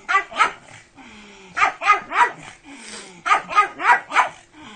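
A pug barks in quick runs of short barks: two near the start, three in the middle and four near the end.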